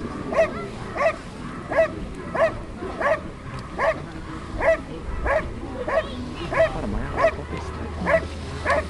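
A dog barking steadily in a fast, even rhythm, about one and a half sharp, high-pitched barks a second.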